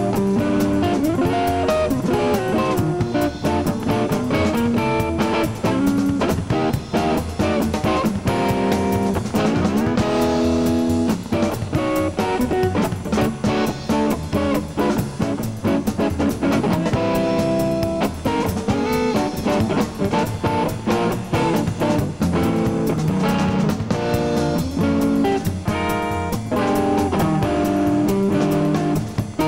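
Live blues band: an archtop hollow-body electric guitar playing a steady stream of notes over a drum kit.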